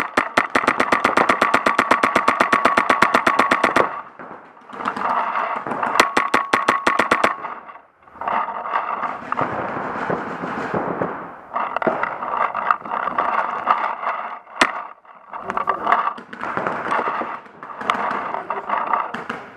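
Paintball marker firing rapid strings of shots, about ten a second: a four-second string, another just over a second long, and later one single shot. Ragged field noise fills the gaps.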